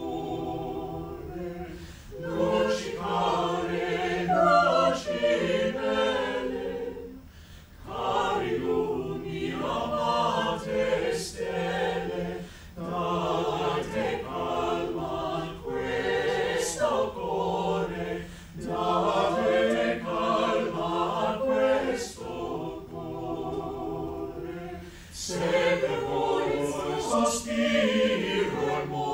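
Small mixed chamber choir singing a cappella, several voice parts together, in phrases broken by brief pauses for breath every few seconds.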